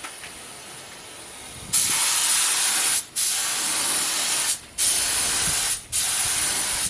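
Paint being sprayed onto car body plastic: a hiss that starts about a second and a half in and comes as four passes, each a second or so long, with brief breaks between them.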